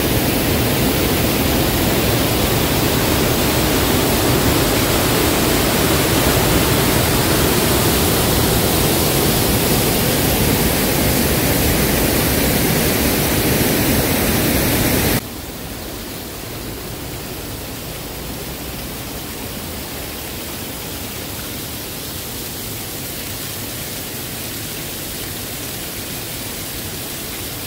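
Creek water rushing over a rock waterfall and cascade, a steady loud rush. About fifteen seconds in it cuts suddenly to a quieter, steady sound of falling water from a small waterfall.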